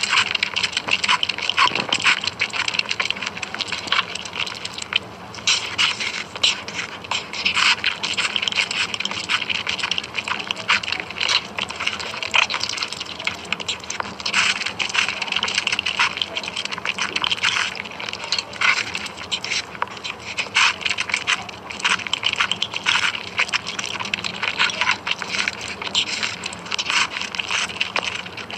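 Close-miked eating sounds of a mukbang: chewing and mouth noises as a dense, continuous run of short wet clicks and crackles.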